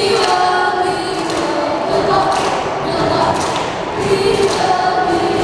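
A group of children's voices performing in unison, holding drawn-out notes that step in pitch.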